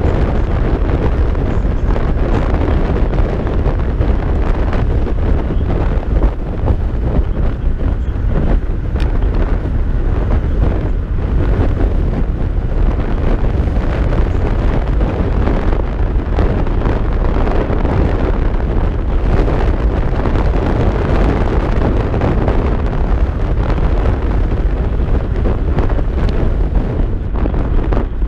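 Loud, steady wind buffeting on the microphone while riding an electric scooter at speed.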